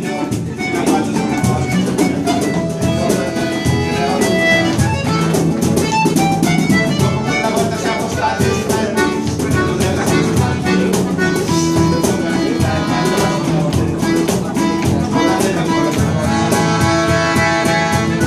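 Live acoustic folk-rock music: a fiddle and an accordion play the tune over strummed acoustic guitars and a hand drum.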